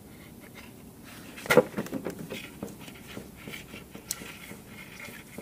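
Handling noise as a garden sprayer's hose is worked onto a brass barbed fitting threaded into an engine block. There is one sharp knock about a second and a half in, then light clicks and scraping.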